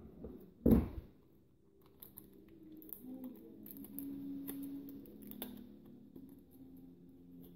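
A single loud, short thump less than a second in, then light crinkling and clicking of the plastic blister pack of a CR1620 coin-cell battery as it is peeled open by hand.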